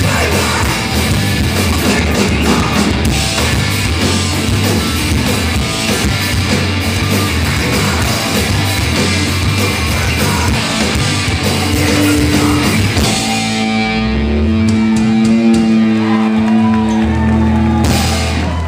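Live rock band playing loud, with drum kit, electric guitar and singing. About thirteen seconds in the drums drop out and only held guitar and bass notes ring on, with a brief crash near the end.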